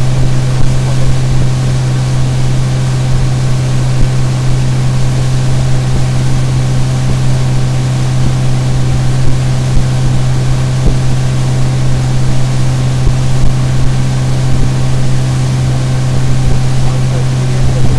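Boat underway with its 50 HP Mercury CommandThrust four-stroke outboard running at a steady speed, one unchanging engine note that holds throughout, over the rush of wind and water.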